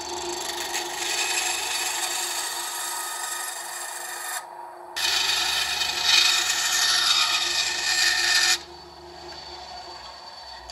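Bandsaw blade cutting through a thin strip of wood, an even hissing rasp. It breaks off briefly about four and a half seconds in, resumes louder, and stops suddenly about two seconds before the end.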